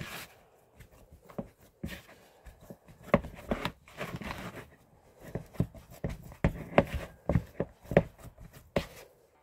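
Dough of flour, egg, salt and water being kneaded by hand in a plastic bowl: irregular squelching pushes and dull thumps of the bowl, a few a second, with a couple of brief rustling, scraping stretches.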